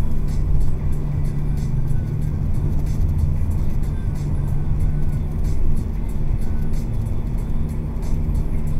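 Car driving at steady speed, heard from inside the cabin: a steady engine and road-noise drone, with music playing alongside.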